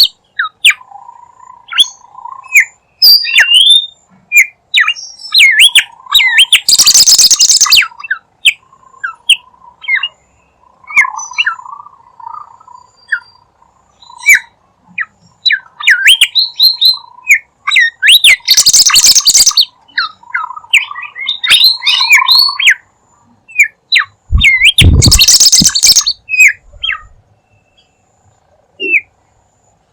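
Bimoli bird calling, as used for a lure: quick sweeping chirps and whistles over a buzzy trill. Loud harsh bursts about a second long cut in three times, near the start, in the middle and near the end.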